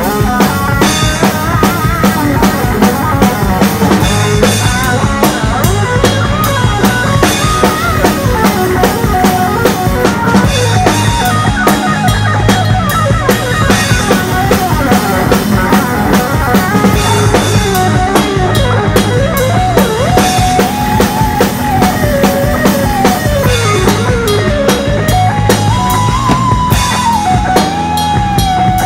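Live rock band playing an instrumental passage: an electric guitar lead with bending, sliding notes over a steadily pounding drum kit and bass.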